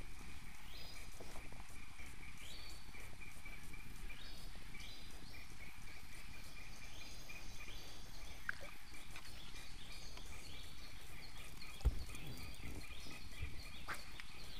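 Forest birds calling over the river: a short rising call repeated about once a second over a steady high hum. A single dull thump comes about twelve seconds in.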